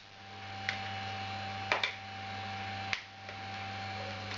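Plastic case clips of a COWON J3 media player snapping into place as the casing is pressed together: a few small sharp clicks, two of them close together near the middle, over a steady electrical hum.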